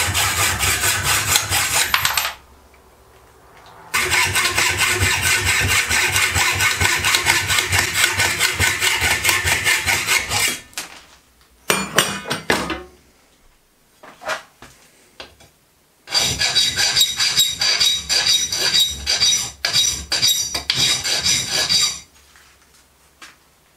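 Hacksaw cutting metal held in a bench vice: fast back-and-forth rasping strokes that pause about two seconds in and resume until about ten seconds in. A few short clatters follow, then another run of rasping metal strokes from about sixteen to twenty-two seconds.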